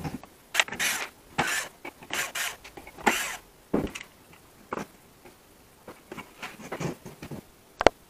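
Irregular handling noises: a dozen short rustles, scrapes and light knocks of small objects being picked up and moved about, most of them in the first four seconds.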